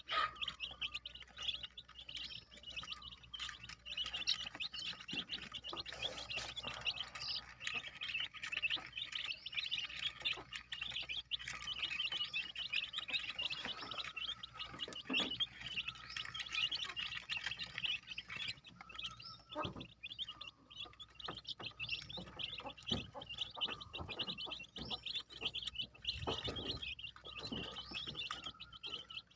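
A brood of one- to two-week-old kampung chicken chicks peeping continuously, many high cheeps overlapping, with a few soft knocks in between.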